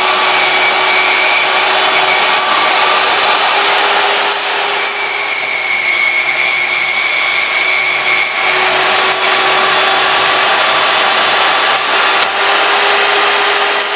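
Power tool cutting 7/8-inch metal tubing into short sleeves: a loud, steady cutting noise over a constant motor tone, brighter for a few seconds midway.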